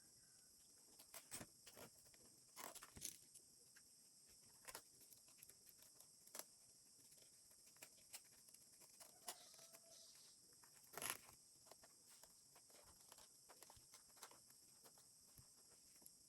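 Near silence: faint, scattered clicks and taps over a steady high hiss, with a slightly louder cluster of taps about eleven seconds in.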